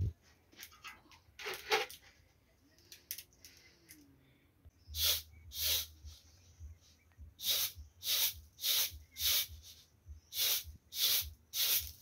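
Grain tossed on a metal tray in short rhythmic swishes, about two a second in runs of two to four, as it is winnowed by hand. A thump and a few faint rustles come first.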